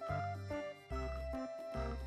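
Upbeat background music: a melody of short held notes over a low bass note that returns a little more often than once a second.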